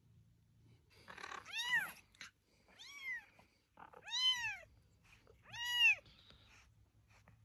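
Kitten meowing four times: short, high-pitched meows, each rising and then falling in pitch, a second or so apart.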